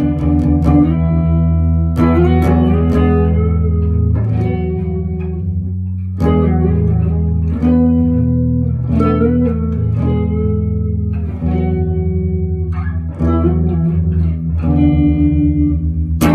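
Electric guitar played through an amplifier: picked notes and short phrases over low notes left ringing underneath, with a brief pause between phrases about six seconds in.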